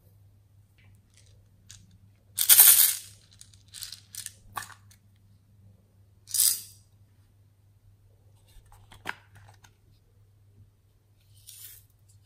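Glitter, sprinkles and small beads being shaken and tipped out of small jars and a plastic spoon, giving several short rattling, rustling bursts. The loudest comes about two seconds in and another about six seconds in.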